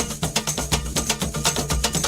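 Carimbó dance music played over a party sound system: an instrumental stretch of fast, dense hand percussion with no singing.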